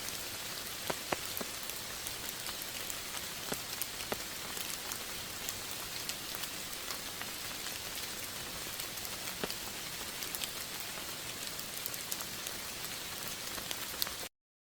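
Steady rain falling, a dense even hiss with scattered sharp ticks of individual drops. It cuts off abruptly just before the end.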